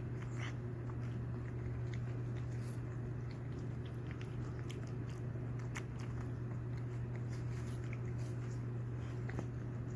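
A Pomeranian biting and chewing watermelon: scattered short crunches and clicks over a steady low hum.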